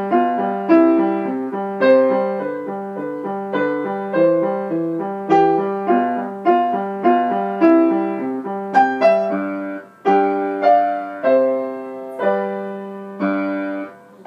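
Grand piano played as a steady run of struck notes and chords, with a brief gap about ten seconds in. It ends on a held chord that rings and dies away near the end.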